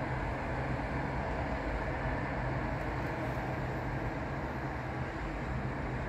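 Steady road traffic: engines running and tyres hissing on a wet road, under a constant low hum.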